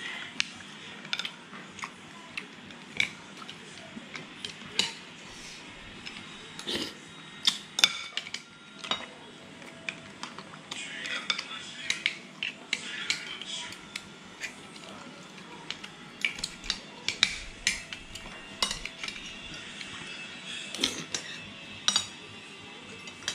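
Metal spoon and fork clinking irregularly against a ceramic plate of mussels in their shells, in sharp separate clicks throughout.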